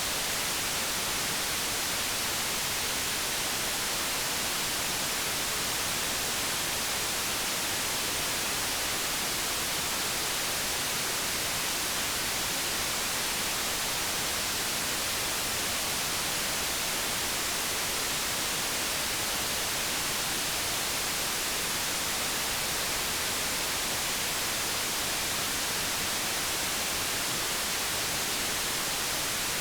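Steady white noise: an even, unchanging hiss, strongest in the high frequencies, played as a sleep sound to soothe a crying infant.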